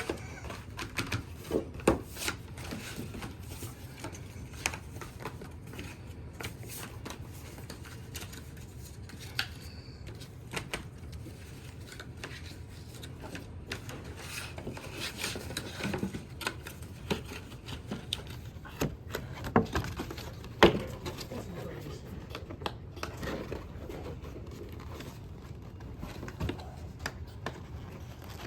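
Cardboard display parts being folded, creased and handled: scattered rustles, taps and sharp clicks, with a few louder snaps, two of them close together around two-thirds of the way through.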